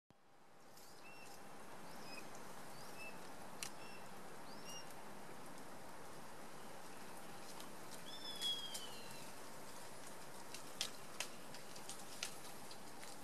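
Bird calls over a steady hiss of swamp ambience: several short chirps in the first five seconds and a longer downward-sliding call about eight seconds in, which is the loudest. A few sharp ticks follow near the end.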